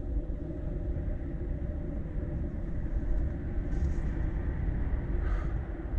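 Steady low outdoor rumble, with faint brief rustles about four and five seconds in.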